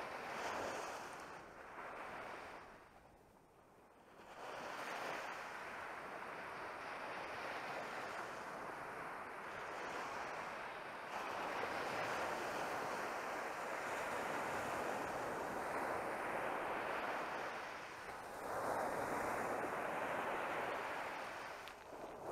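Small Sea of Azov waves breaking and washing up a sandy shore, the surf swelling and fading in slow surges; it falls away briefly about three seconds in.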